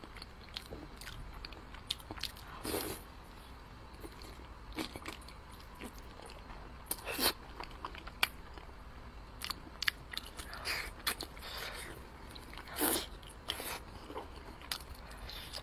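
Close-miked chewing of braised pork: wet mouth clicks and smacks at an uneven pace, with a few louder squelching bites.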